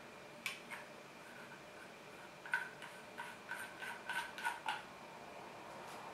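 Light metallic clicks from the fold-out aluminium legs of a monopod's support foot being handled and folded: two near the start, then a run of about three clicks a second for a couple of seconds.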